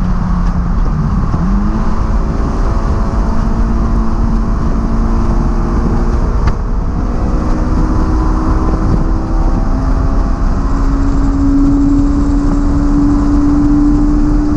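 Honda S2000's high-revving four-cylinder engine heard from inside the open cabin, pulling in one gear through a long corner with wind rush. The revs jump up about a second in, then climb slowly and hold at the top near the end as the engine reaches its rev limiter, a sign the gear is too low for the corner.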